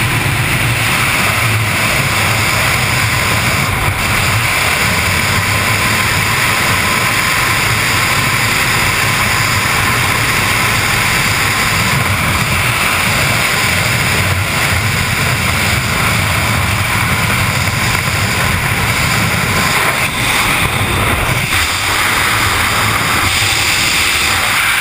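Loud, steady rush of freefall air buffeting the camera's microphone as the skydiver falls.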